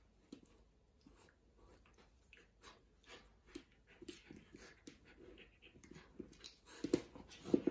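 Papillon dog playing on its back, biting and tugging at a cloth bag: a string of short mouthing and chewing noises mixed with fabric rustling, growing louder and busier near the end.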